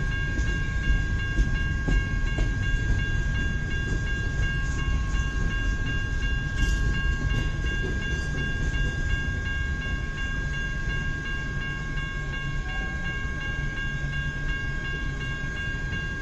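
Freight cars of a long CN grain train rolling past, a steady low rumble of wheels on rail with a constant high whine over it. It eases off slightly in the second half.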